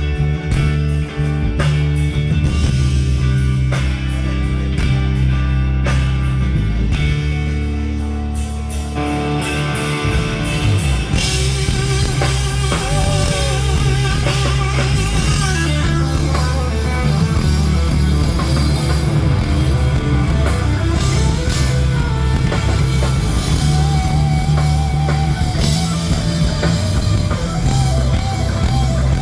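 Rock band playing live through a festival PA, with electric guitars, bass and drum kit, heavy in the low end. About ten seconds in the music moves into a new section with a wavering melodic line over the top.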